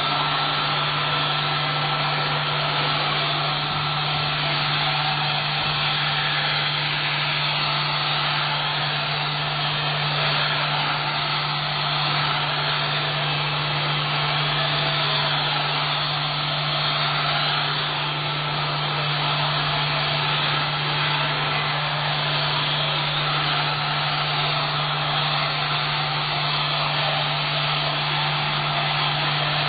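Vacuum cleaner running steadily: a constant motor hum under an even rush of air, with no change in speed.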